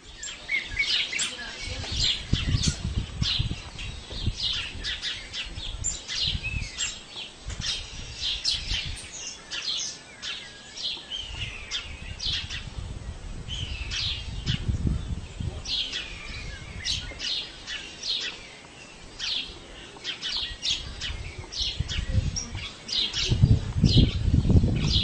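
Small birds chirping: many short, quick, downward-sweeping notes repeated throughout. They sit over bursts of low rumble that grow loudest near the end.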